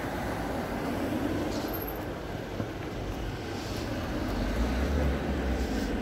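Street traffic ambience: steady road noise from cars on the adjacent road, with a low rumble that swells as a vehicle passes about two-thirds of the way in.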